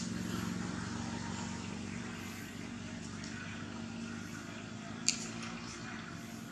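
A steady low engine hum runs throughout, with two sharp clicks: one at the very start and one about five seconds in.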